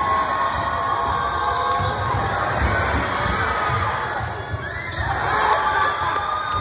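Basketball bouncing on a hardwood gym court and players' footsteps during live play, over the murmur of the crowd in the gym. The crowd noise swells about five seconds in as a layup goes up.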